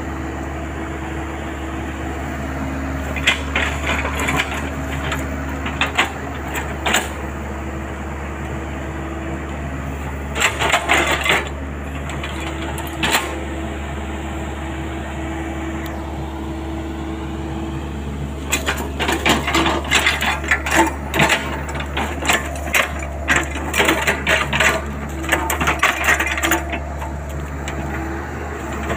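Compact crawler excavator's diesel engine running steadily, with bursts of clicking and knocking as the bucket works through mud and woody debris, the busiest stretch in the second half.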